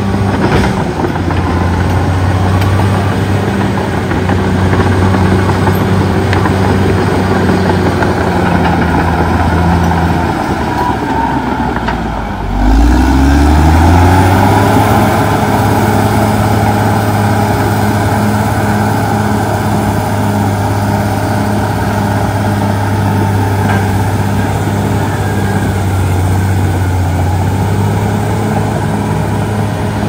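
CAT D6R XL bulldozer's diesel engine running steadily under load as it pushes dirt. About twelve seconds in, the engine drops briefly, then revs back up and runs louder.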